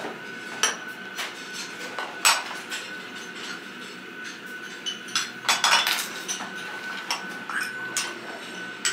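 Tableware clinking and knocking at a grill table: scattered light clicks, busiest about two seconds in and again between five and six and a half seconds in, over a faint steady background with a thin high whine.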